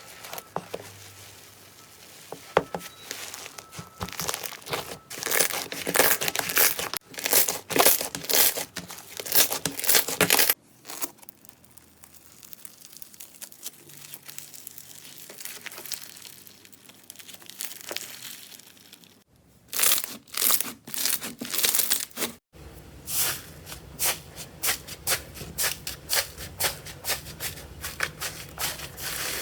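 Slime being squeezed and worked by hand, giving dense runs of crackling and popping clicks. The sound changes suddenly about a third of the way in, again around two thirds, and once more shortly after, as one slime clip gives way to the next; the middle stretch is quieter.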